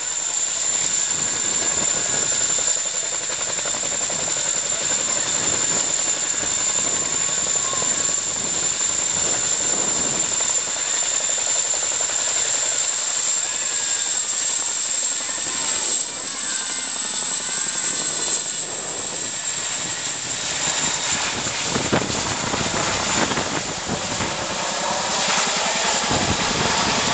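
Boeing CH-47 Chinook tandem-rotor helicopter running, its twin turbine engines giving a steady high whine over a loud, continuous rush of rotor and engine noise.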